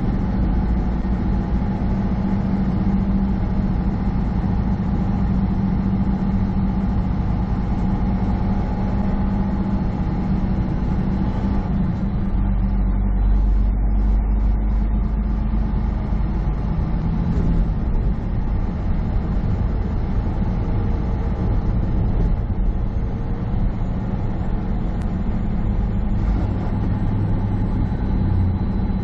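Semi truck's diesel engine droning steadily with road noise, heard from inside the cab while cruising on the highway. About twelve seconds in, the low rumble grows stronger for a few seconds.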